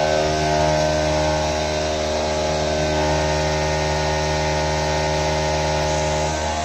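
Epoxy-granite CNC vertical mill milling an aluminium plate under flood coolant. The spindle gives a steady whine of several pitches over the hiss of the cut and the coolant spray.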